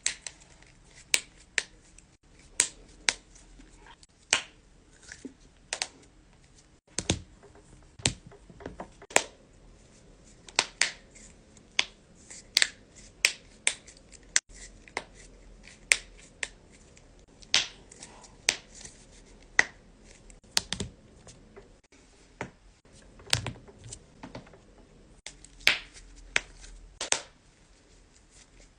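Knuckles cracking: dozens of sharp joint pops at irregular intervals, often two or three in quick succession, with short pauses between.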